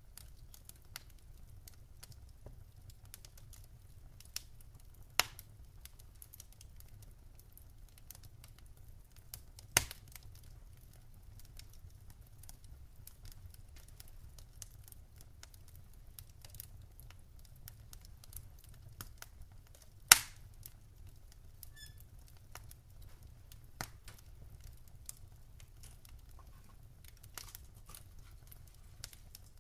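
Wood fire crackling, with scattered sharp pops, the loudest about five, ten and twenty seconds in, over a low steady rumble.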